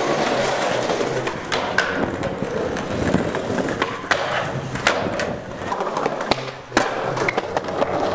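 Skateboard wheels rolling on smooth concrete, broken by a series of sharp clacks as the board pops, lands and grinds a bench ledge. The loudest clack comes near the end.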